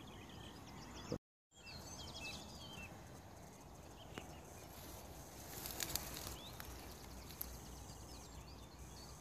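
Faint birdsong: small birds twittering in short chirps over a steady background hiss. The sound cuts out completely for a moment about a second in.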